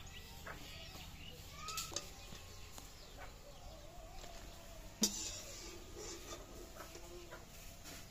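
Hens clucking now and then, with small clicks of steel kitchenware and one sharp metallic clink about five seconds in.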